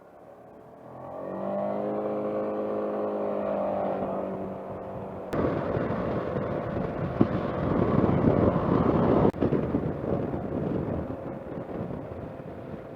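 Suzuki Burgman 200 scooter engine pulling away on a steady, unchanging note for a few seconds. About five seconds in, it gives way to a loud rush of wind and road noise as the scooter rides on, with a sharp click at the changeover and another a few seconds later.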